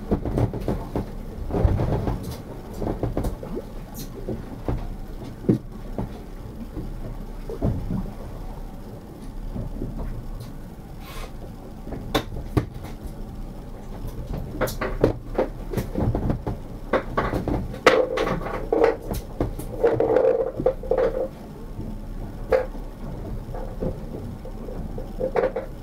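Irregular knocks and clatter of gear and hull aboard a small fishing boat, over a steady low rumble, with a few short creaks about two-thirds of the way through.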